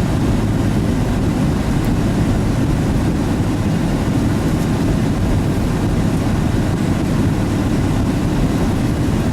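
Pickup truck on the move: a steady low engine and road rumble.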